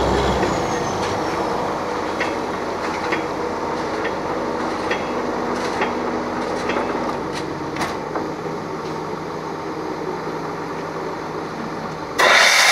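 Truck-mounted borewell drilling rig running steadily while drilling, with a few short metallic clicks and knocks. Near the end a sudden, much louder rushing noise comes in.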